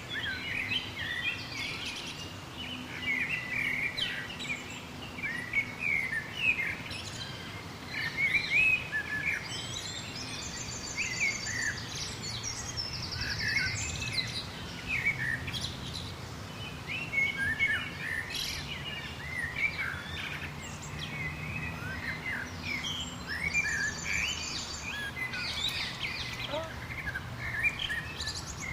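A chorus of songbirds chirping and singing, with many short overlapping chirps throughout and a fast, high trill of rapidly repeated notes heard three times.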